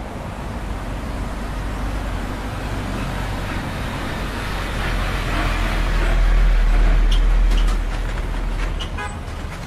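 City street traffic with a heavy fire engine driving past close by, its low engine rumble swelling about six seconds in and easing off a second or two later.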